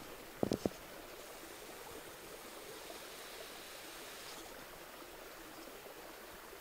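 A shallow creek running steadily, an even rushing of water. A quick cluster of three knocks about half a second in.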